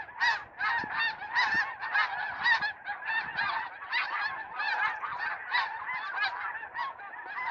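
A large flock of snow geese calling in flight: many short honks overlapping in a continuous chorus.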